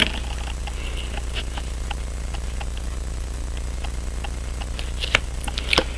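Small metal tool clicks on a wristwatch movement while a tight part is pried at, with two sharper clicks near the end, over a steady low hum.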